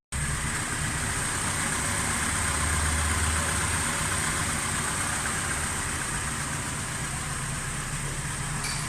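Honda VTEC engine running steadily with a low, even hum through a new custom exhaust (middle box, straight pipe and rear resonator) that sounds nice and quiet.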